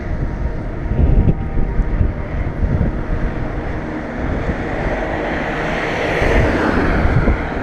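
Wind buffeting the microphone, with a car driving past on the road: its tyre and engine noise swells and peaks about six to seven seconds in.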